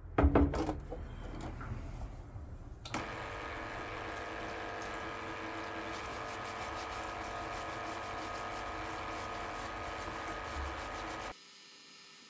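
Benchtop parts washer: a few clunks as the aluminium final drive housing goes into the metal tub, then the washer's pump runs with cleaning fluid pouring from the nozzle while a brush scrubs the casing. The pump cuts off suddenly near the end.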